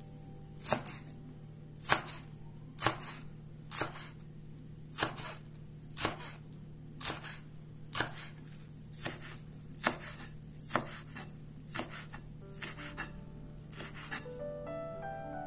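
Chef's knife slicing green onions on a wooden cutting board: a crisp knock of the blade against the board with each stroke, about one a second, coming a little quicker near the end.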